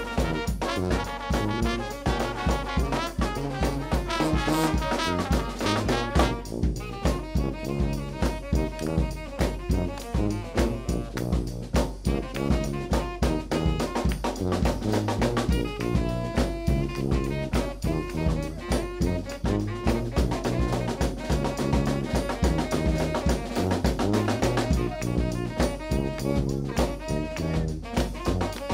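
A New Orleans brass band playing an upbeat tune live: trumpet, trombone and tenor saxophone over a sousaphone bass line, with bass drum and snare keeping a steady beat.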